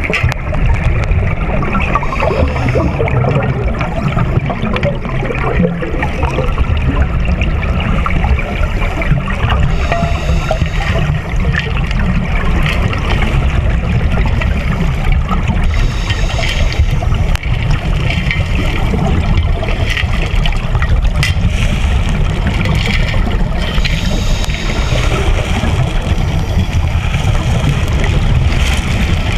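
Underwater sound through a camera housing during a scuba cave dive: a steady low rush of water with gurgling bubble noise coming and going every few seconds, typical of divers' exhaled bubbles from their regulators.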